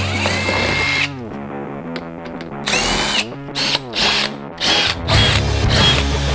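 Cordless drill run in a series of short bursts against the car's plastic rear fascia, its motor whine rising as it spins up and falling as it stops, with background music underneath.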